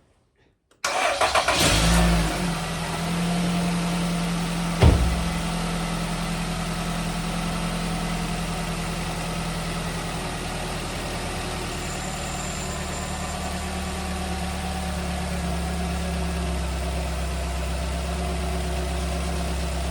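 A 2019 Nissan Rogue's four-cylinder engine cranks briefly and starts about a second in, then idles steadily on a good spare battery while the charging system is tested. There is one sharp knock about five seconds in.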